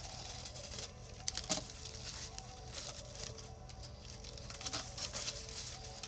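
Cardboard case of Topps Tier One baseball card boxes being opened by hand: cardboard and packing rustling, with a few sharp clicks and taps.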